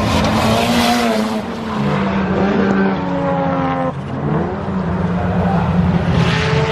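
Racing car engines running hard on the circuit, their pitch climbing and falling with the revs, with a sharp drop and recovery about four seconds in, like a lift or a gear change.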